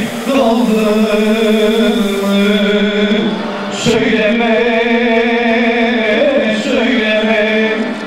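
A man singing a Turkish folk song in long, wavering held notes, with bağlama (long-necked saz) accompaniment. A short break and breath come about three and a half seconds in before the next long phrase.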